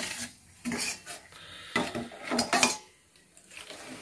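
Long steel ladle scraping and clinking against a stainless steel bowl as hot oil is stirred and ladled, in several short bouts, the loudest about two and a half seconds in.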